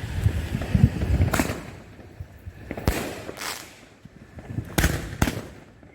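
Consumer firework cakes firing: low thuds, then about five sharp cracks spread a second or so apart.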